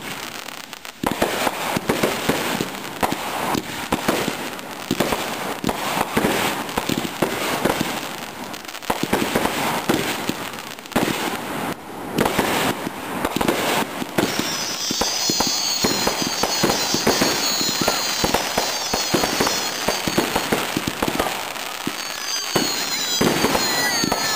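Consumer 1.4G fireworks going off in rapid succession: a dense run of bangs and crackling aerial bursts. From a little past halfway, high whistles rising and falling over and over ride on top of the bangs, and a lower whistle falls away near the end.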